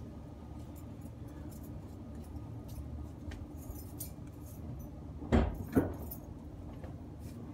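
Car keys jangling and handled, with two sharp clunks close together about five seconds in, over a low steady background hum; the engine has not yet started.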